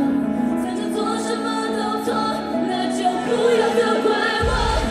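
Idol-group pop song performed live, with women singing over the backing music. The bass and drums come in abruptly near the end.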